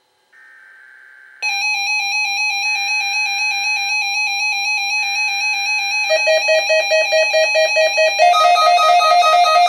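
Three faint bursts of buzzy digital data, the SAME header of an EAS Required Weekly Test. About 1.5 s in, a WR-100 weather radio's alarm starts over them: a loud, rapidly pulsing beep. A second, lower pulsing tone joins about 6 s in and further tones about 8 s in, stacking into a denser alarm.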